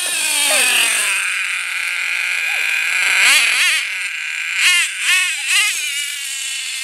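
Two-stroke HPI F4.6 nitro engine of an RC monster truck running at high revs with a high-pitched whine. Its pitch falls over the first second, then it is blipped up and down several times about halfway through.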